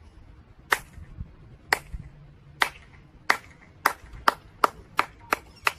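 A slow clap: about ten single hand claps that start a second apart and speed up to about three a second.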